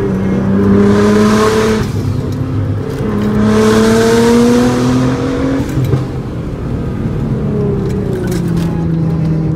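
Nissan GT-R R35's twin-turbo V6 heard from inside the cabin, pulling hard twice with its pitch rising, a loud rush of noise over each pull and a short lift about two seconds in, then easing off with the pitch falling. The engine is in limp mode, held to about 10 psi of boost.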